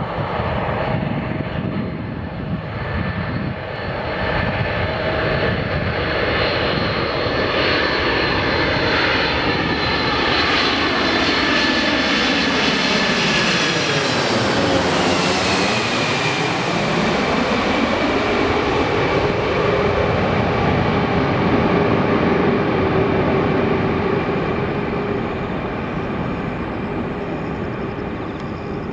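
Boeing 747-400 jet airliner on final approach passing low directly overhead, its four engines running loud with a high whine. The whine drops in pitch about halfway through as the plane passes over, and the noise fades a little near the end as it moves away toward the runway.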